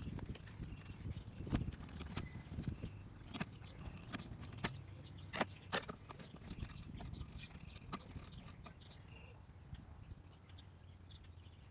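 Scattered small plastic clicks and knocks as an HID xenon headlight bulb is twisted and worked out of its socket in the headlight housing by hand, over a faint low hum.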